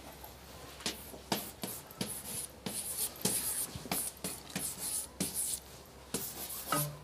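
Chalk writing on a blackboard: a run of short, irregular scratching strokes and taps as letters are drawn.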